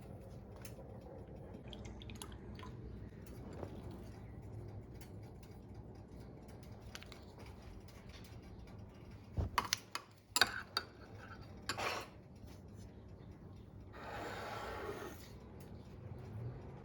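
Kitchen utensils and dishes being handled: light clinks and taps, a few sharp knocks a little under halfway through, then a short hiss lasting about a second.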